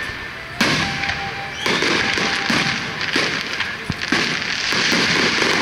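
Aerial fireworks shells bursting overhead: a sudden loud bang about half a second in, another a little after one and a half seconds, then dense crackling with scattered sharp pops as the stars burn out.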